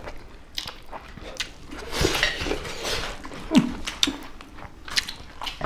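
Close-up eating sounds of chicken and rice eaten by hand: chewing and lip-smacking, with scattered short wet clicks.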